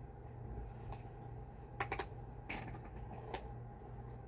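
A few short clicks and knocks from handling a vintage Hoover Celebrity canister vacuum's power nozzle and switch, over a low steady hum: a cluster of clicks about two seconds in, then two single ones.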